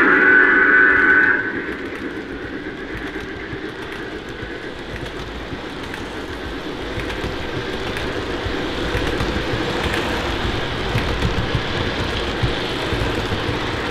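O gauge model train running along the track, its steady rumble slowly growing louder. A loud pitched tone ends about a second in.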